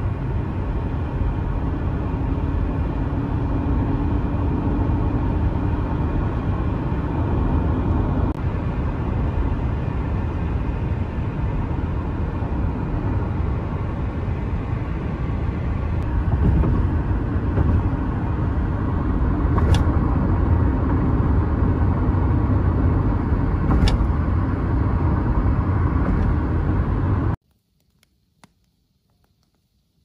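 Steady road and engine noise of a moving car, heard from inside, low and rumbling. It cuts off suddenly near the end, leaving near silence with a few faint ticks.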